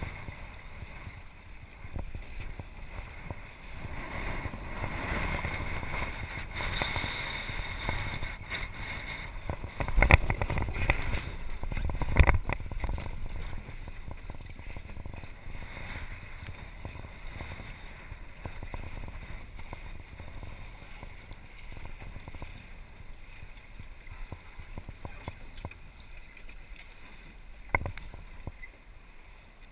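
Water sloshing and lapping against a small sailing dinghy's hull, with wind on the microphone, and a few louder knocks and rustles about a third of the way in and a single sharp click near the end.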